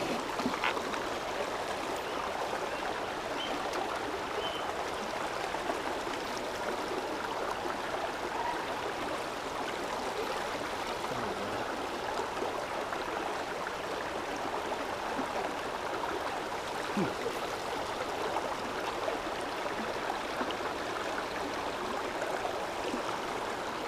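Small rocky creek running shallow over stones: a steady rush of water.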